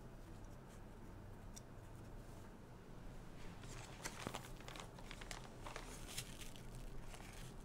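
Faint crinkling and rustling of a plastic zip-top bag being handled, starting about three and a half seconds in, over a low steady hum.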